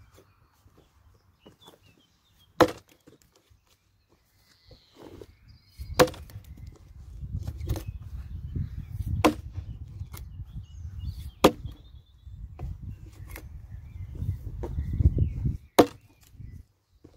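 Hultafors Agdor 1500 g axe, its bit ground thin to 15 degrees, chopping into a log: six sharp strikes a few seconds apart, one of them fainter. A low rumble runs under the strikes from about six seconds in until near the end.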